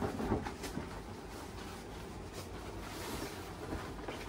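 Faint rustling and crinkling of the plastic packaging and cloth as a bed sheet set is pulled open, with a few brief crackles over a steady low hiss.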